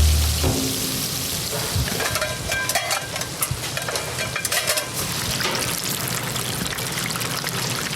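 Busy commercial kitchen: a steady frying hiss, with utensils and pans clattering from about two to five seconds in.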